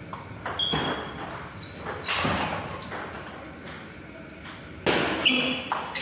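Celluloid-type table tennis ball struck by rubber bats and bouncing on the table during a rally: a string of short, sharp pings at irregular spacing, echoing in a hall. Voices murmur in the background.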